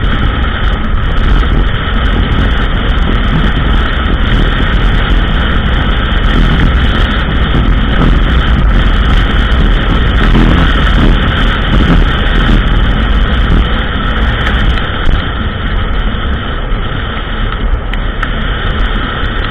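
ATV engine running steadily on a trail ride, loud throughout, with a heavy low rumble and no pauses.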